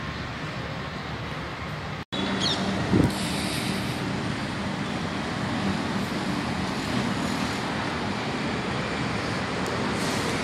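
Steady outdoor background roar, typical of distant road traffic. It drops out for an instant about two seconds in, and a short low thump follows about a second later.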